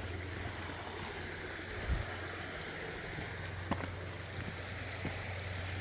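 Steady rush of flowing water over a low rumble, with a few faint knocks, one about two seconds in.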